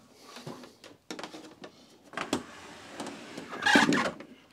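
A heavy Commodore PET computer being turned around on a wooden workbench: several knocks and clunks of its case, then a louder, longer scrape near the end.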